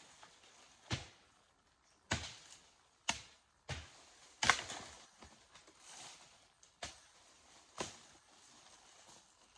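Bolo (machete) chopping through brush and saplings: about seven sharp, irregularly spaced strikes, the loudest about halfway through.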